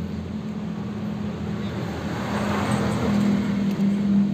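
A motor vehicle engine runs steadily in the background, with a swell of passing-vehicle noise about halfway through and the hum growing louder after it.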